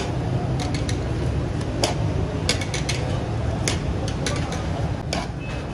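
Metal ladle clinking and scraping against a large cooking pot as a batch of cooked rice is stirred and mixed, in irregular sharp strokes over a steady low rumble.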